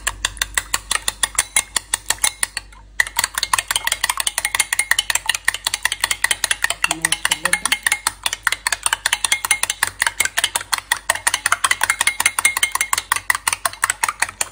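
Metal spoon beating raw eggs in a glass bowl, clinking against the glass about five times a second, with a short pause about three seconds in.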